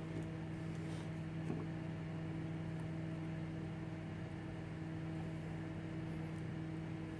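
Steady low hum that holds one unchanging pitch, with a couple of faint clicks about a second in.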